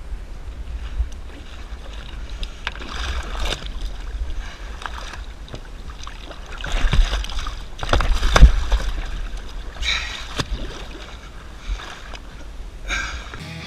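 A hooked tarpon thrashing in the water against a fiberglass boat hull while held by the jaw: irregular splashing and knocks, loudest about seven and eight and a half seconds in.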